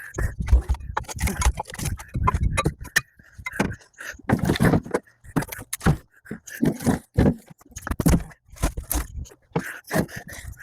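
Split firewood pieces clunking and knocking against one another as they are tossed one after another, in a quick, irregular run of wooden thuds.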